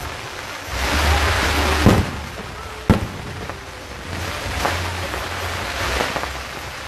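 Fireworks shells bursting in sharp bangs, the two loudest about two and three seconds in and fainter ones later, over a steady rushing noise and low rumble.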